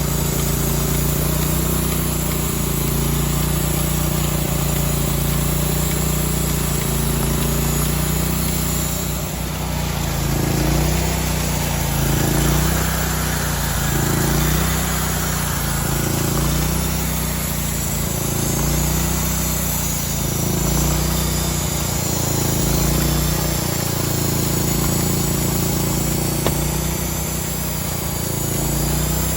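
The engine of a homemade sawmill running steadily. From about ten seconds in, its pitch dips and recovers roughly every two seconds.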